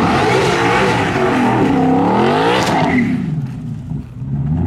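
Race car passing at speed: the engine note climbs as it approaches, drops as it goes by about two and a half seconds in, then fades away.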